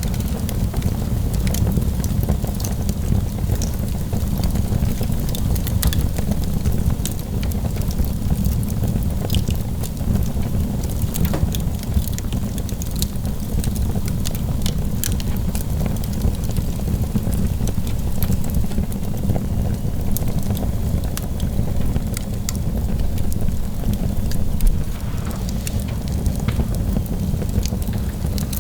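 Fire crackling in a fireplace: many small irregular pops and snaps over a steady low rumble.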